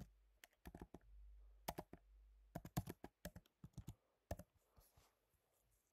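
Typing on a computer keyboard: scattered, irregular keystrokes that stop about four and a half seconds in.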